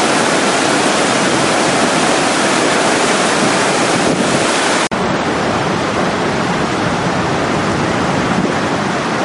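Steady loud rush of water; about five seconds in it cuts abruptly to the deeper, heavier rush of a river in flood, with wind buffeting the microphone.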